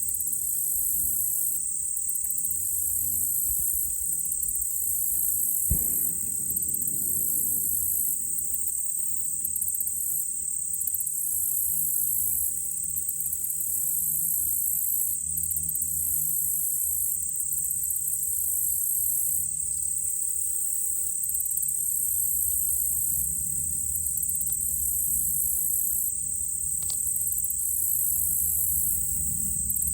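Chorus of insects trilling steadily, a constant high buzz with a pulsing chorus above it, over a low steady hum. About six seconds in, a single distant gunshot from a shooting range cracks once and rumbles away briefly.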